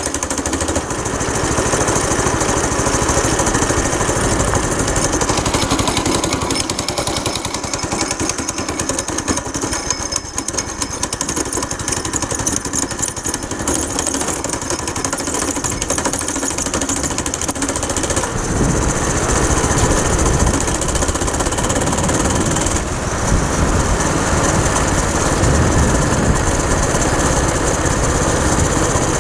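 A go-kart's small single-cylinder four-stroke engine running as the kart drives along, with wind rushing over the microphone. The engine sound gets louder and deeper from about 18 seconds in.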